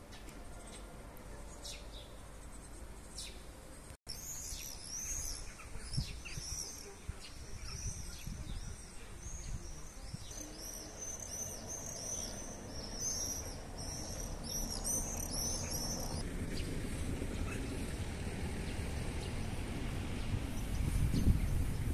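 Songbirds chirping, faint at first, then a dense run of rapid, high repeated chirps starting abruptly about four seconds in and stopping about sixteen seconds in. After that, wind rumbles on the microphone, growing toward the end.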